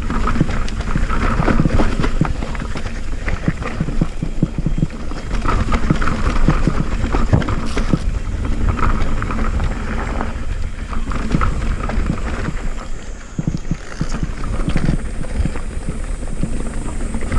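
Mountain bike riding fast over a rough trail: irregular rattling and knocking from the bike over bumpy ground, with steady wind noise on the microphone.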